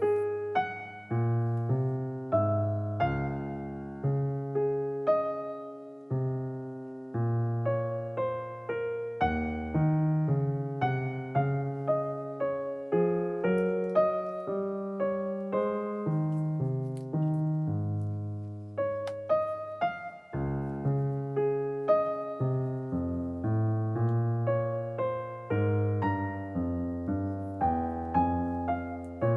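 Background piano music: a steady melody of struck notes over a bass line.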